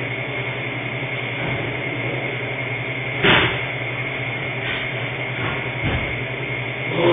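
Steady electrical hum and hiss from a security camera's microphone, broken by a few knocks or bangs, the loudest about three seconds in and another at the very end.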